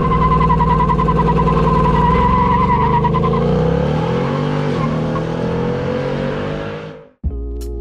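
Car engine revving and accelerating, its pitch rising and falling, with a high wavering whine above it for the first three seconds. The engine fades out about seven seconds in, and music starts just before the end.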